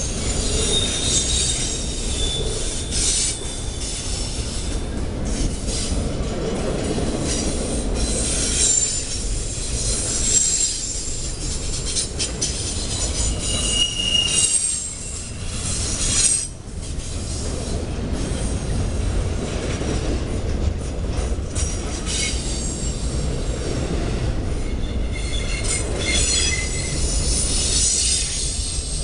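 Freight train's container-laden well cars rolling past close by: a steady rumble of steel wheels on rail, with high-pitched wheel squeal that comes and goes.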